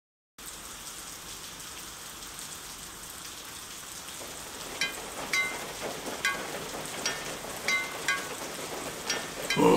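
Cartoon rain: a steady rain hiss that starts just after a brief silence, joined about five seconds in by irregular plinking drips of water. A larva's short voice sound cuts in at the very end.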